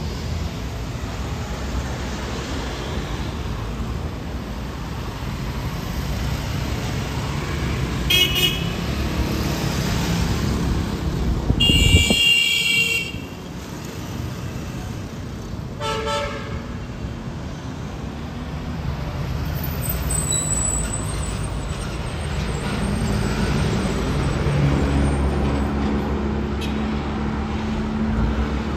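Street traffic rumbling steadily, with car horns honking three times: a short toot about 8 seconds in, a longer blast around 12 seconds and another toot near 16 seconds.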